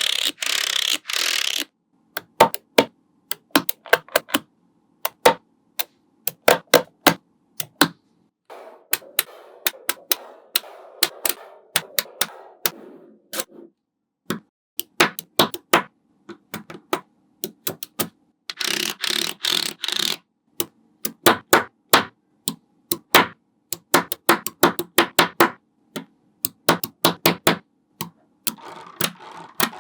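Small magnetic balls clicking and snapping together in quick, irregular sharp clicks, with a few short spells of dense clattering and a softer stretch of scraping about a third of the way in.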